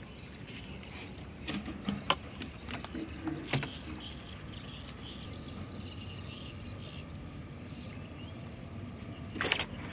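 Steady outdoor background noise with a few sharp clicks and taps in the first few seconds and a brief louder rustle near the end.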